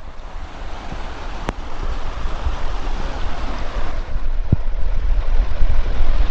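Wind buffeting the microphone: a rushing noise with a heavy low rumble, growing steadily louder.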